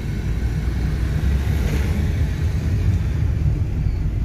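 Car cabin noise while driving: a steady low rumble of engine and tyres on a wet road.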